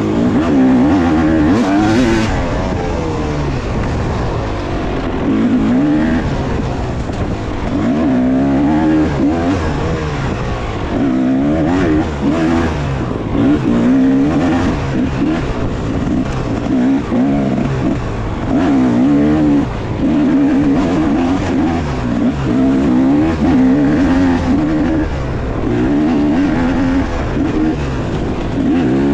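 Yamaha YZ250-series 250cc two-stroke dirt bike engine revving up and down again and again as the throttle is opened and shut. The pitch climbs and falls every second or two, with brief dips between bursts.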